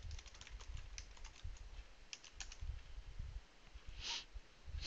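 Keys tapped on a laptop keyboard: scattered light clicks as a command is typed and Enter is pressed at the prompt, with a brief louder hiss about four seconds in.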